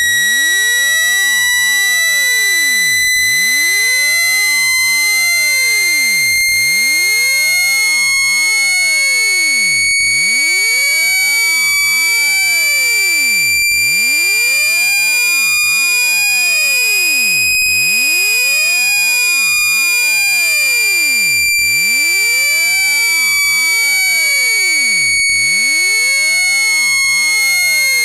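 Synthesized speaker-cleaning tone: a loud, continuous high-pitched tone with overtones, played to shake dust and water out of a speaker grille. Its pitch slowly rises through the first half and eases back down a little near the end.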